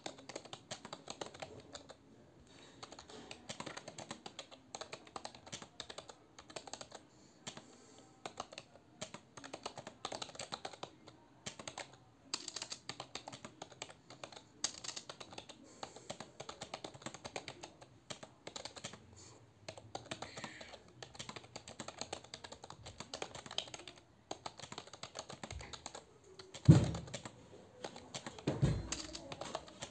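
Computer keyboard typed at a steady, unhurried pace: a continuous run of irregular key clicks with brief pauses. Near the end come two much louder thumps.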